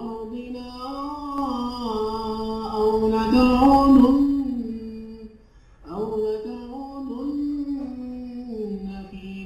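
A man's voice reciting the Quran in a drawn-out melodic chant, holding long notes that bend up and down, loudest about halfway through, with a brief break before the next phrase. It is a recording played back through a bass and treble adjustment with the bass raised.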